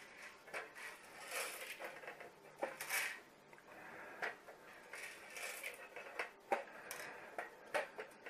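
Freshly roasted coffee beans being emptied out of a home roaster's drum into a colander: several short bursts of beans rattling and sliding, and a few sharp clicks near the end as the drum is handled.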